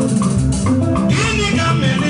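Live band music with a drum kit keeping a steady beat. A man's voice comes in singing through a microphone about a second in.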